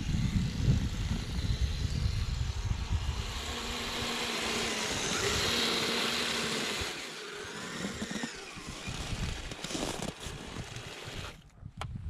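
Kyosho Blizzard SR radio-controlled snowcat running on its tracks through snow, with a low rumble over the first few seconds. A few sharp crunches come near the end as it stops.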